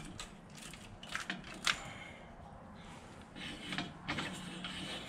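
A few scattered metallic clicks and taps from a socket wrench being worked on a bolt by the lifting chain.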